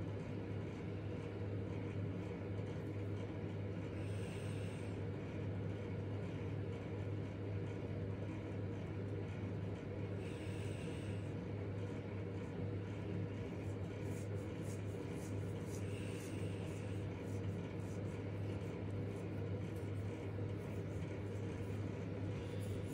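Steady low hum of background room noise, with a faint soft hiss swelling every five or six seconds.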